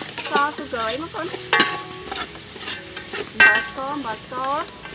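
A metal ladle stirring soup in a large aluminium pot, scraping and clinking, with two sharp ringing clinks against the pot, about a second and a half in and again near three and a half seconds.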